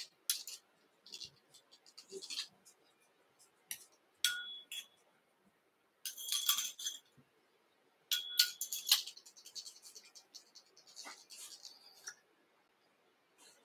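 Scattered light clicks and taps of fly-tying tools and thread being handled at the vise, with a short metallic ringing clink about four seconds in and again about eight seconds in.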